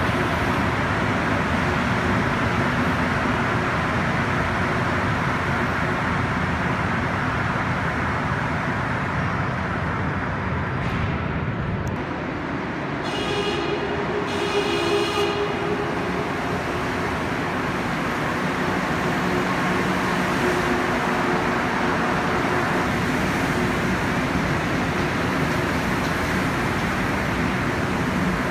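Montreal Metro rubber-tyred trains entering stations: a steady running rumble and hiss. About halfway through come two short high-pitched tones, then the noise of the next train pulling in alongside the platform.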